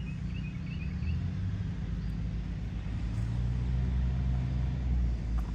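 Steady low rumble of a motor vehicle, growing a little louder about three seconds in, with a few faint high chirps in the first second.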